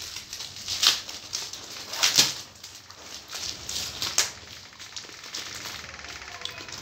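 Plastic courier mailer bag rustling and crinkling as it is handled and pressed, with a few louder crackles, the loudest about two seconds in.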